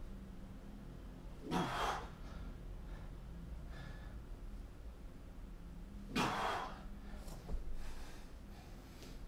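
A man breathing hard while doing slow-tempo push-ups. Two loud, forceful exhales come about a second and a half and about six seconds in, with softer breaths between.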